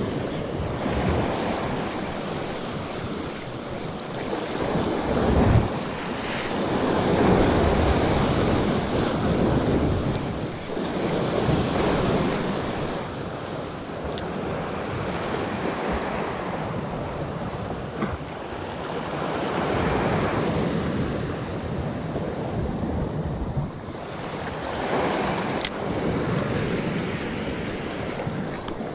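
Sea waves surging and breaking on the rocks, the rush swelling and falling every few seconds, with wind buffeting the microphone.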